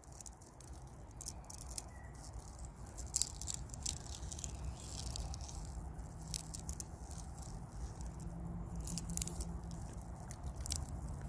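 Ice crackling and clicking: many irregular, sharp little ticks over a steady low rumble.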